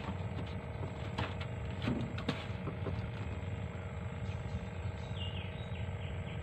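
Steady low rumble with a faint hum underneath, a few light clicks and knocks in the first seconds as a caught fish is unhooked and handled in a small boat, and a short bird call falling in pitch about five seconds in.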